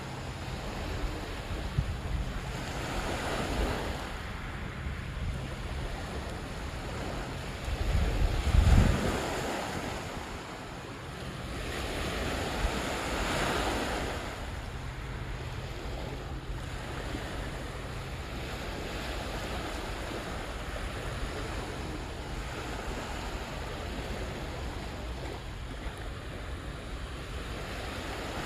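Small waves washing onto a shore, swelling and falling every few seconds, with wind buffeting the microphone in a strong low gust about eight seconds in.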